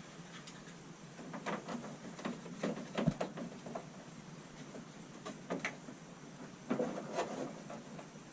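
Hand tool scraping and clicking against the edge of an RV wall switch opening as the hole is enlarged: irregular short strokes in three bursts, with quiet gaps between.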